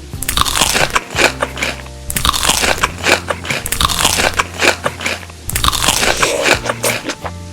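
Crunchy food being bitten and chewed close to the microphone: three bouts of rapid crackling crunches with short pauses between them.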